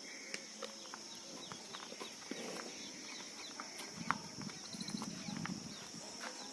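Farmyard sound: steady insect chirring with scattered ticks, and from about two-thirds of the way in, low shuffling steps of livestock moving on the ground.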